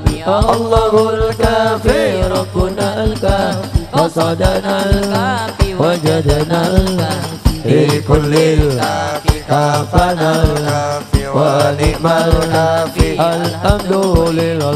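Sholawat, Islamic devotional singing in Arabic, accompanied by habsyi frame drums keeping a steady, even beat.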